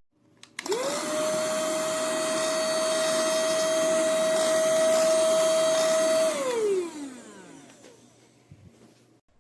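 120 W cordless handheld mini vacuum cleaner switched on with a click. Its motor whines up quickly to a steady high pitch and runs for about five and a half seconds, then is switched off and winds down with a falling whine.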